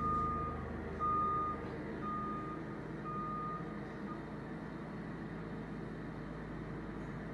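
ASV RT-30 compact track loader's backup alarm beeping about once a second as the machine reverses, over its diesel engine running steadily. The beeping stops about four seconds in while the engine keeps running.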